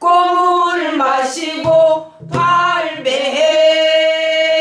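A woman singing a Korean danga, a short pansori-style song, in long held notes with a wavering pitch, keeping time on a buk barrel drum with a stroke about two seconds in.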